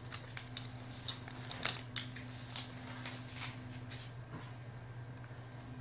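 Small objects being handled and picked up from a tabletop: irregular light clicks, taps and rustles of paper or foil, the sharpest about a second and a half in, over a steady low hum.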